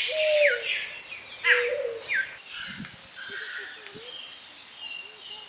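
Small birds chirping and calling, with quick falling notes loudest in the first two seconds and fainter calls after, over a steady high-pitched hiss.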